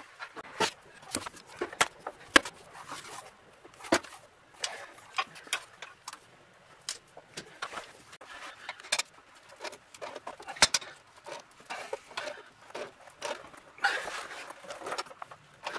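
Irregular clicks, knocks and rustling from hands and tools working on a car's underside, with a few sharper clicks standing out.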